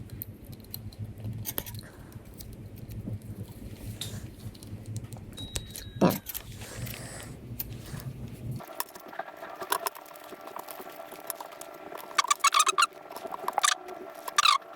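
Small metal hardware (a washer and screws) being handled, with scattered clicks, rattles and metallic clinks. A cluster of jingling clinks comes near the end.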